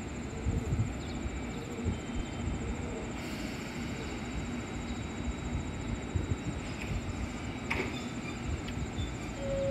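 Two JR Kyushu 811 series electric trains pulling slowly out of the station together, with a low rumble of wheels and motors and a thin steady high whine. A short hiss comes about three seconds in, and a few light knocks come near the end.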